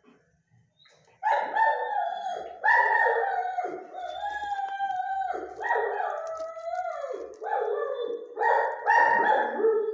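German Shepherd dog giving a string of loud whining, howl-like calls. Each call lasts about a second and starts high, then slides down in pitch. The calls begin about a second in and come one after another with short breaks.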